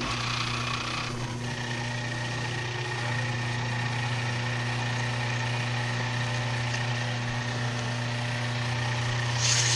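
Delta wood lathe running with a steady hum and hiss while a wooden file handle is sanded as it spins. A thin steady whine joins about a second in, and there is a brief louder hiss near the end.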